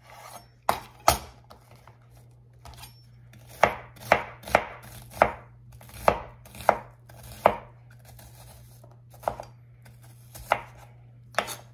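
Luxano chef's knife dicing an onion, the blade knocking down on the work surface in irregular chops, about a dozen strikes with short pauses between, over a steady low hum.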